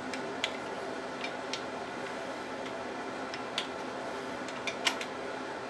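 Scattered sharp metallic clicks and taps at irregular intervals from a click-type torque wrench and socket being worked on the oil pump bolts of a GM 2.4L Quad 4 engine, checking bolts already torqued. The strongest is a quick cluster of clicks about five seconds in, over a steady low background hum.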